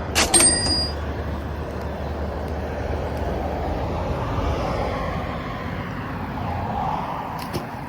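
Steady, distant rumble of motor traffic that swells and fades. A sharp metallic click rings briefly about a quarter second in, and a couple of fainter clicks come near the end.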